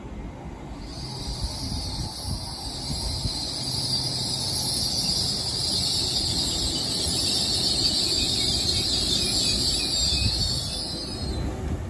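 LNER Class 801 Azuma electric train running in along the platform and slowing to a stop. A steady low rumble from the wheels runs under a loud high-pitched brake hiss, which starts about a second in and fades away near the end as the train comes to a stand.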